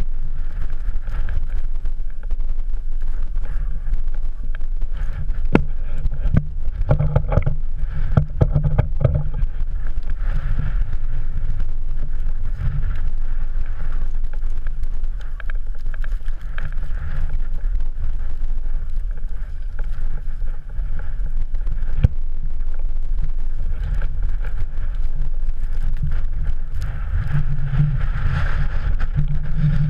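Wind buffeting an action camera's microphone, a loud, steady low rumble, with a few scattered knocks from handling or trekking poles.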